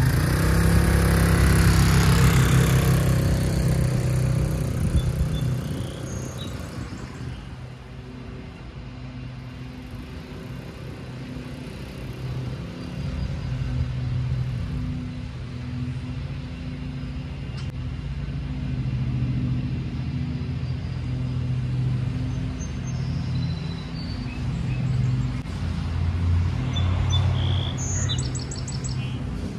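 Chinese 150cc scooter's four-stroke single-cylinder engine pulling away. It is loud for the first few seconds, then fades into the distance, stays as a steady hum down the street, and grows louder again near the end as it heads back. Birds chirp briefly near the end.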